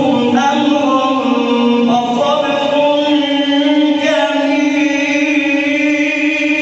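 A man's voice chanting Quran recitation in the melodic tajweed style, holding long drawn-out notes that bend slowly in pitch, with a shift to a new note about two seconds in and again about four seconds in.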